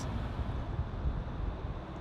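Steady low rumble of a vehicle on the move, with wind noise on the microphone.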